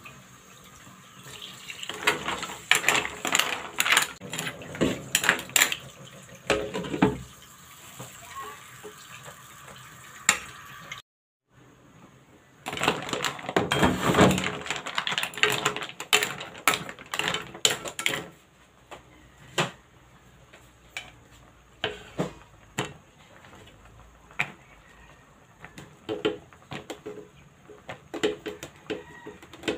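Metal spatula stirring green mussels in their shells in a pan of broth, the shells and spatula clattering against the pan in two runs of dense clatter, then scattered single clinks.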